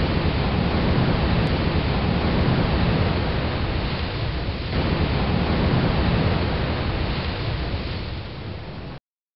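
Wind blowing over the microphone: a steady rushing noise with a heavy low rumble, which cuts off suddenly near the end.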